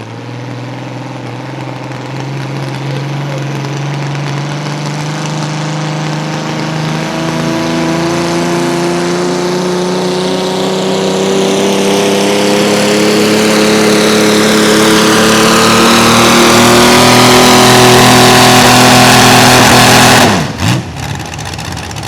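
Naturally aspirated mini rod pulling tractor's engine under full load on a pull run, its revs and loudness climbing steadily. The engine runs fairly clean, without much of the spit and sputter of its misfire. The sound cuts off abruptly about twenty seconds in.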